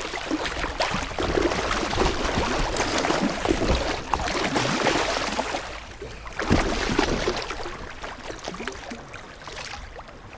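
Water splashing and sloshing around a kayak, with scattered knocks and one louder hit about six and a half seconds in.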